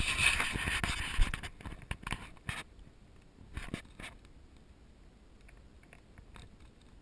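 Handling noise from a camera being set down and settled in dry dirt: scraping and rustling with several sharp knocks for the first two and a half seconds, then only faint scattered scuffs and clicks.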